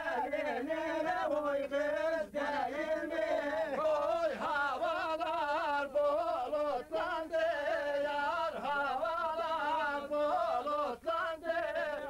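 A group of men singing together without instruments, one wavering, ornamented melodic line held almost without a break.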